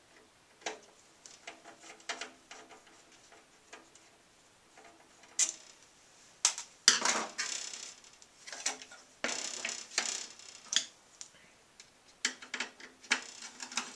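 Clicks and taps of a screwdriver and metal parts being handled against the sheet-metal card cage and circuit board of a workstation chassis. A few longer scraping, sliding sounds come about seven and ten seconds in.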